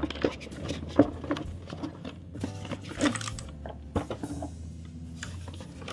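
Packaging being handled as the contents of a keyboard box are taken out: irregular rustling with a few sharp knocks and taps, the sharpest about a second in, over a steady low hum.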